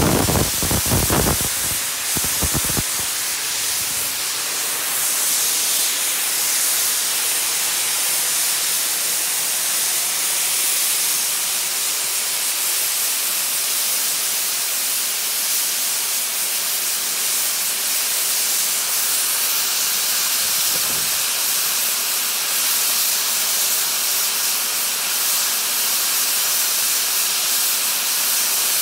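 Steady, loud hiss of steam escaping from a standing LMS Ivatt Class 2MT 2-6-0 steam locomotive, No. 46512. A few low thumps come in the first three seconds.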